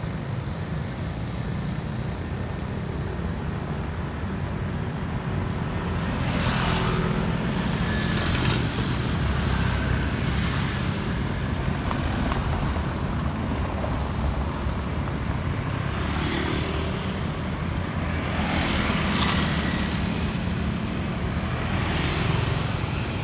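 Light street traffic at an intersection: a steady low rumble, with motorbikes passing one at a time, each swelling up and fading away, about five passes in all.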